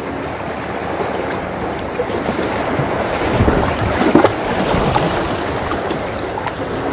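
Sea water washing and splashing around shoreline boulders, a steady rushing noise.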